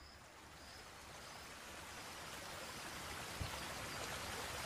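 Steady rushing of a small river's flowing water, a soft hiss that fades in and grows louder, with one soft thump about three and a half seconds in.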